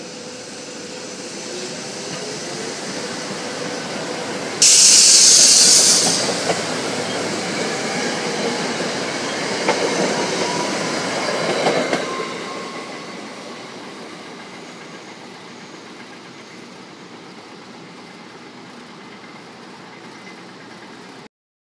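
SEPTA Silverliner IV electric commuter train passing close by and running away down the line. Its wheel and rail noise builds, with a sudden loud hiss for about a second and a half some five seconds in. Clicks from the wheels come around ten to twelve seconds in before the noise fades away.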